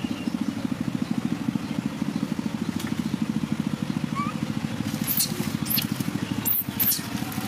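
A small engine running steadily with a fast, even throb, with a few sharp crackles in the second half.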